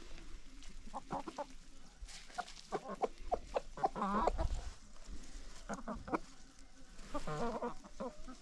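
Free-range hens clucking, short calls repeated throughout, with longer drawn-out wavering calls about four seconds in and again near the end.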